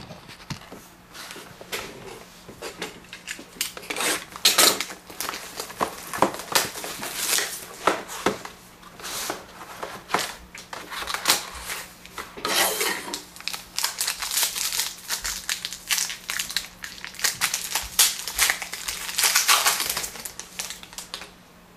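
Packaging and cardboard crinkling and rustling as a sealed box of Panini Limited hockey trading cards is opened, in irregular bursts with sharper crackles now and then.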